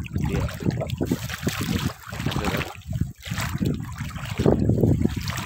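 Seawater splashing and sloshing in irregular bursts, with no steady tone.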